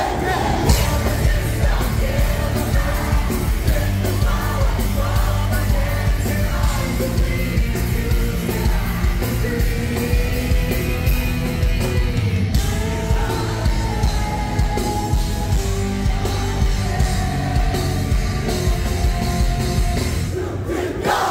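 Live rock band playing loud: drums keeping a steady beat, bass and electric guitar, with a woman singing over them, heard from within the audience.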